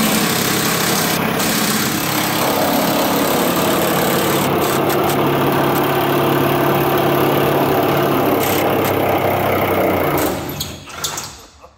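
Cordless impact wrench on a long extension running continuously, about ten seconds, undoing a rusted pickup-box bolt, then stopping abruptly.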